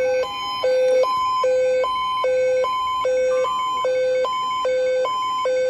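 Electronic emergency alert tone sounding a hi-lo alarm, two steady pitches about an octave apart switching back and forth roughly every 0.4 s, marking the start of a severe thunderstorm warning.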